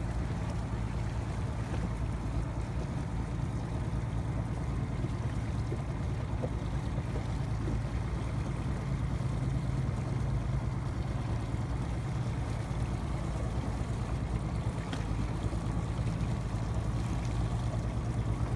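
A motorboat's engine running with a steady low hum, over a wash of water noise.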